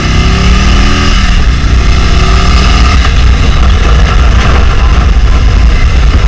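Harley-Davidson Street Glide Special's V-twin engine pulling under acceleration, its pitch rising through the first second, then running steadily at speed.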